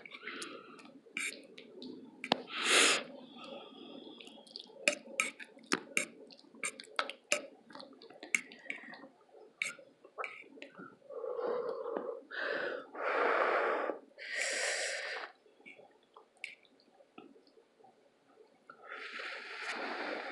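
Close-miked eating: many sharp mouth clicks and smacks of chewing, then several loud breathy bursts like breaths or sniffs, a few in a row about eleven seconds in and another near the end.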